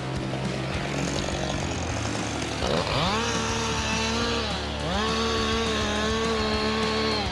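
Two-stroke chainsaw engine idling, then throttled up twice. Each time the pitch rises quickly and holds high for about two seconds, with a short dip between the two runs and a drop back at the very end.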